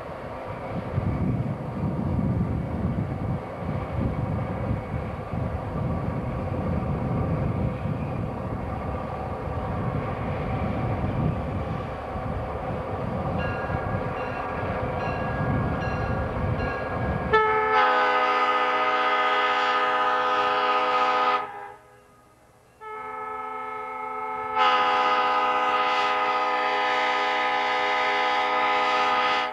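Diesel passenger locomotive (an EMD FP7A) approaching with a low rumble, its multi-chime air horn faint at first and then sounding loud long blasts for a grade crossing: one about four seconds long, a short break and a softer note, then another long blast.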